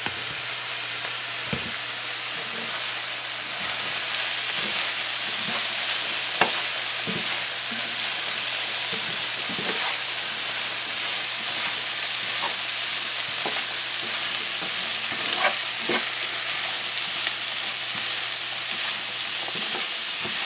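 Black-eyed peas frying in oil in a nonstick pan, a steady sizzle, while a spatula stirs them, with scattered short scrapes and knocks of the spatula against the pan.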